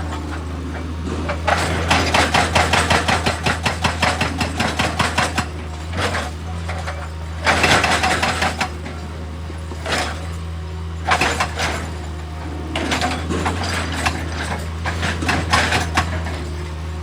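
Excavator's diesel engine running steadily, with a stretch of rapid clatter, about five knocks a second, near the start and several louder bursts of scraping and clanking from the machine at work.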